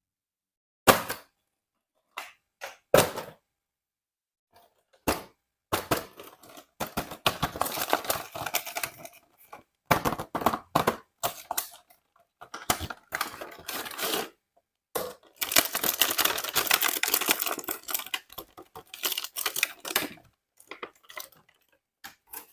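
Handling and unboxing a plastic toy set: a few sharp clicks and knocks, then long stretches of packaging crinkling, rustling and tearing, broken by pauses.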